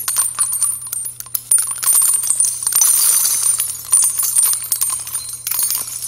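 Jingling, tinkling transition sound effect, a dense run of many small metallic clinks like shaken bells or coins, with a faint steady low hum beneath.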